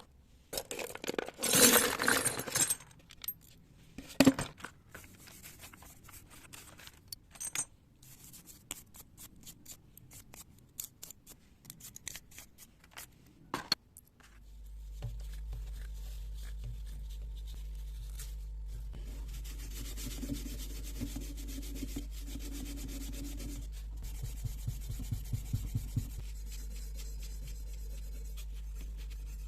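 Hand tools rubbing and scraping on metal carburetor parts, loudest in a stretch about a second in, followed by scattered small clicks and knocks. About halfway through a steady low hum starts and continues under light scratching.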